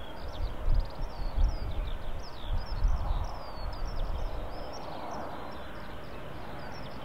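Wind buffeting the microphone in gusts over the first few seconds, with many small birds chirping and a steady distant rush from the approaching four-engined Boeing E-3D Sentry's jets.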